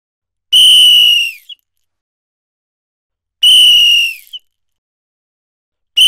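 Indian bus conductor's metal whistle blown in short blasts: two blasts about three seconds apart, each a steady shrill tone that dips in pitch as it ends, with a third starting right at the end.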